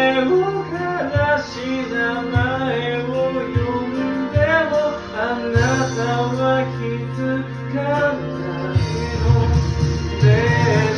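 Karaoke backing track of a band song playing with a voice singing over it, picked up by a phone microphone in a karaoke room.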